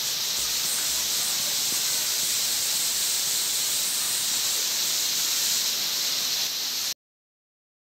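Waterfall pouring down a rock face: a steady rushing hiss of falling water that cuts off abruptly near the end.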